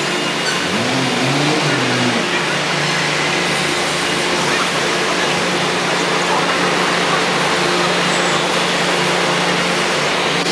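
Heavy diesel engine running steadily under a constant wash of construction-site and street noise. About a second in, a brief pitched note rises and falls again.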